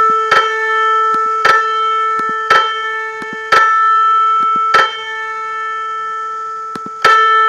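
A4 two-string piano unison played by an online tuning app, restruck six times, about once a second with a longer ring before the last. Each strike follows a nudge to one string as it is brought into a clean unison with the other.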